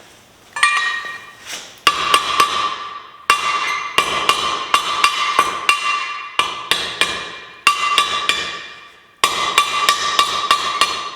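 Hammer blows on the steel socket of a pruning chisel held over an anvil horn, in quick runs of about four strikes a second with short breaks between, the metal ringing after each blow: the dented socket is being hammered back into round.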